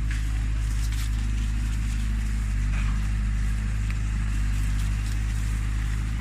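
Heavy diesel engine running steadily with a low, even hum that holds one pitch throughout.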